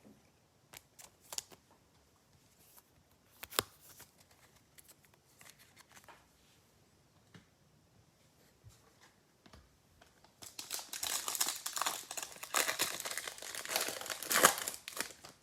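Trading cards handled with scattered light clicks and rustles, then about ten seconds in a card pack wrapper is torn and crinkled open for several seconds.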